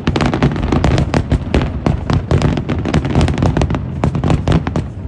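Fireworks going off in quick succession: dense, rapid bangs and crackles, many per second, over a continuous low rumble.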